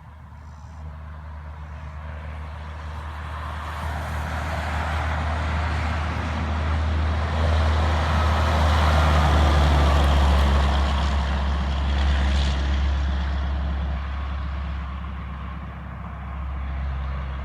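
Heavy diesel semi truck approaching and passing by, its low engine drone and tyre noise swelling to a peak about halfway through and then fading as it moves away.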